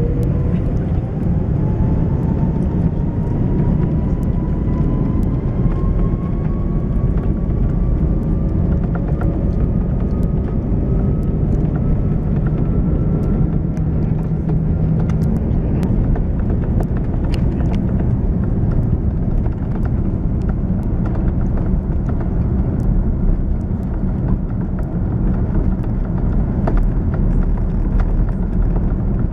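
Airbus A330's Rolls-Royce Trent 700 engines spooling up for the takeoff roll, heard from inside the cabin: a loud steady rumble with a whine that rises in pitch over the first ten seconds or so. Frequent light clicks and rattles run through it as the aircraft accelerates down the runway.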